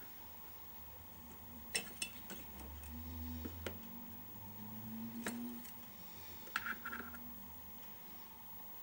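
Handmade wire coils and their small plastic connectors being set down and arranged on a tabletop: a scatter of light clicks and knocks, with a low rumble of handling and sliding in the middle.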